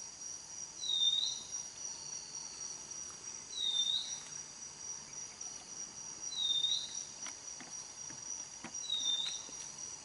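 Steady high-pitched insect drone, with a short high call that rises and falls, repeating five times about every two and a half to three seconds. A few faint clicks come near the end.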